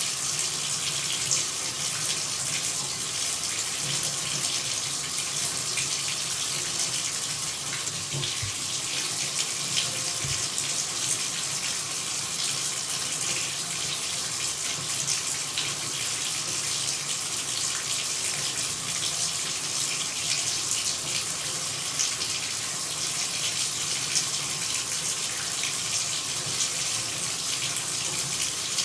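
Running water: a steady splashing hiss, brightest in the high range, full of tiny drop-like clicks.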